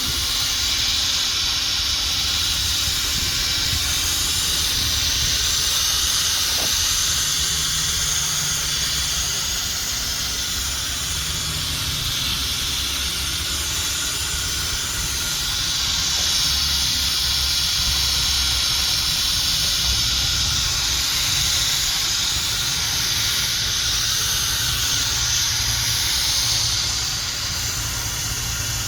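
Power buffing pad spinning against a plastic headlight lens, working in headlight restorer compound: a steady loud hiss over a low motor rumble, swelling and easing as the pad is pressed and moved, dropping off near the end.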